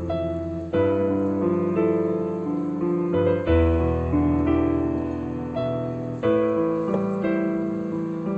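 Background piano music: slow chords, each struck and left to fade, a new chord coming about every two and a half to three seconds.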